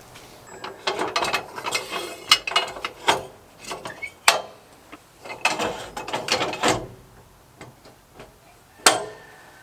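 Freshly sawn cypress boards being handled and set aside: rough scraping and clattering of wood on wood in two stretches, with several sharp knocks, the last one about nine seconds in.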